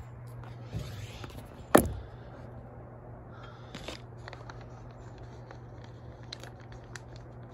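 A phone being set down on a hard tabletop: one sharp knock about two seconds in, then light handling clicks over a steady low hum.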